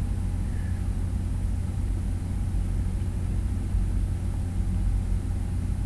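Steady low electrical or room hum with faint hiss: the recording's background noise between spoken lines, with no distinct events.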